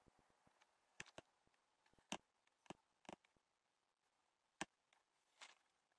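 Scissors snipping at a peace lily's spent flower stalk: several faint, irregularly spaced clicks of the blades, which are struggling to cut through.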